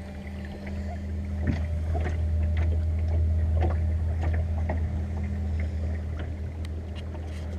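Inflatable dinghy under way on an electric trolling motor: water splashing and lapping against the hull, with scattered short splashes over a steady low rumble.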